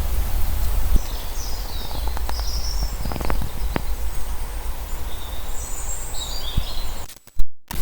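Outdoor riverside ambience: birds chirping over a steady low rumble, with a few light knocks in the middle. The sound breaks off briefly near the end.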